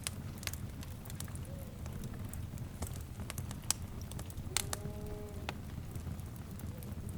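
Wood fire crackling: scattered sharp pops and snaps over a steady low rumble. About four and a half seconds in, a faint animal call is held for about a second.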